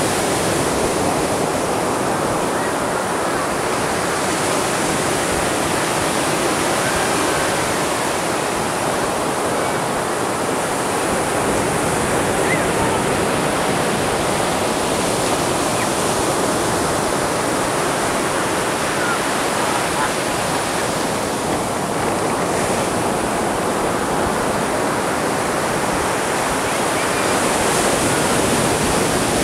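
Atlantic ocean surf breaking on a sandy beach: a continuous rushing wash of water that swells every several seconds as another wave breaks into foam.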